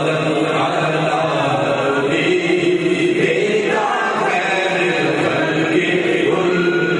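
Two men chanting a devotional recitation together into microphones, their voices amplified and sustained in long held notes.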